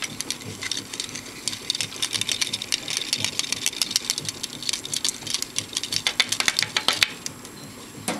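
Rapid, irregular clicking and scratching against the glass of a reptile tank, which stops about seven seconds in.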